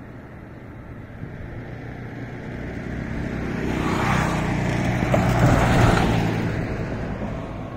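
Passing traffic: a white Force Traveller van going by close alongside, its engine and tyre noise swelling to a peak about five to six seconds in, then fading, over a steady road rumble.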